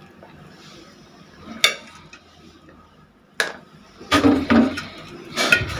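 Metal kitchen utensils clinking and knocking while tea is made and served: two sharp single clinks, then a quick cluster of louder knocks and clatter near the end.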